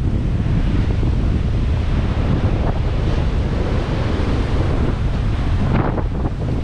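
Strong wind buffeting the microphone over the steady wash of heavy storm surf as a hurricane approaches.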